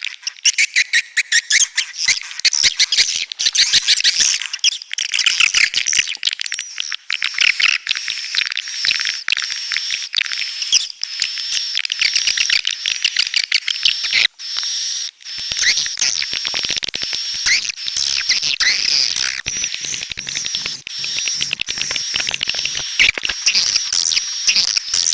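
Edible-nest swiftlets twittering in a dense, continuous stream of rapid high chirps, with a high, nearly steady whistling tone underneath in the second half: a swiftlet call-sound recording of the kind played to lure swiftlets into a nest house.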